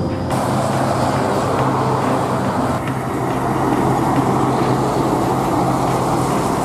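Buses driving past on the road. Steady engine and tyre noise, fairly even in level throughout.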